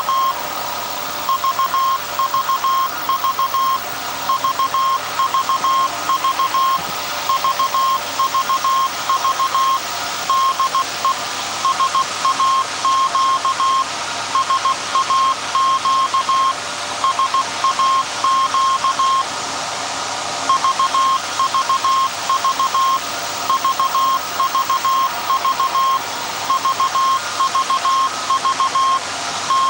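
Morse code from the SAQ Alexanderson alternator transmitter, heard as a monitor tone of about 1 kHz keyed on and off in dots and dashes, over a steady background hum and hiss.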